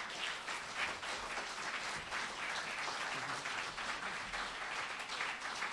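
An audience applauding: many hands clapping at an even level.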